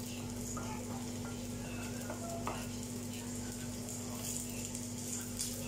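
Cooked rice sizzling in a nonstick frying pan while a wooden spatula presses it down and scrapes it flat, shaping it into a crust for scorched rice. A steady low hum runs underneath.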